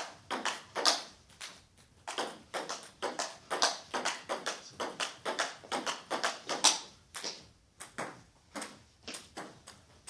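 Table tennis rally: the ball clicks sharply off the bats and bounces on the table in quick alternation, about three to four hits a second, with a short lull near the end.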